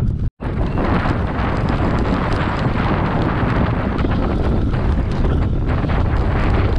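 Wind buffeting the microphone of a bike-mounted camera on a mountain bike rolling down a dry dirt and gravel track, mixed with the rumble of the knobby tyre over the ground. The sound drops out for a split second near the start.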